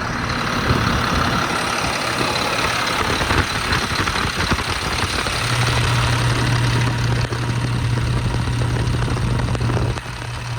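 Caterpillar C7 7.2-litre inline-six diesel idling. A steady low hum strengthens about halfway through and drops back near the end.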